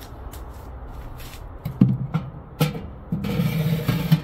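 Low plucked notes of music, like a guitar, coming in about two seconds in and holding near the end, over light metallic clicks of the smoker's wood-chip box being handled.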